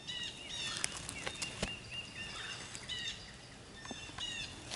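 Songbirds singing in the woods: short, high chirping notes repeated over and over by several birds. A few light clicks sound in the first couple of seconds.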